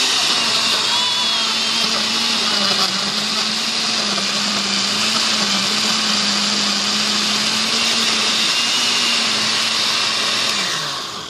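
Oster 10-speed countertop blender running on its Liquefy setting: a steady motor whir with a hum that wavers slightly while the kale packed on top has not yet been pulled down to the blades. Near the end it is switched off and the motor winds down, its pitch falling.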